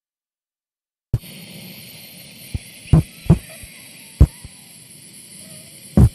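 Vocal percussion: several short, low, mouth-made thumps at uneven spacing, beginning about a second in after silence, over a steady hiss.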